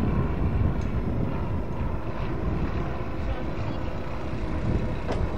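Wind rumbling on the microphone, with the engine and propeller of a light single-engine plane running steadily and faintly.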